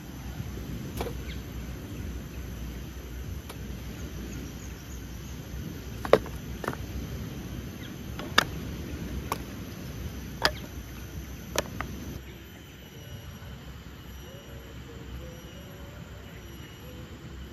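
Hatchet splitting kindling on a wooden chopping block: about eight sharp, irregularly spaced knocks of the blade into wood, the loudest about six seconds in. About twelve seconds in the chopping stops and only a quieter background with faint thin steady tones is left.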